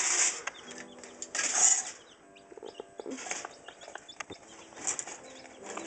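A brood of Rhode Island pullet chicks peeping, with many short high calls, mixed with a few brief bursts of rustling.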